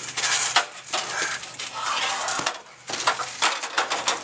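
Irregular clattering, clinking and scraping of a battered aluminium ladder, which has just been crushed by a body slam.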